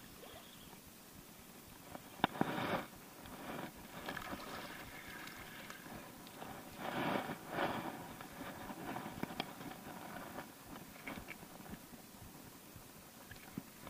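Spinning reel being cranked as a small crappie is reeled in, with light clicking and two short splashes of the fish at the surface, about two and seven seconds in.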